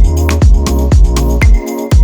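Electronic background music with a steady kick-drum beat, a little over two beats a second, over a bass line and held chords.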